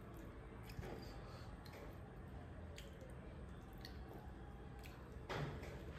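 Faint wet, squishing sounds of smoked pork ribs being pulled apart by hand, with small scattered clicks and one louder squelch near the end.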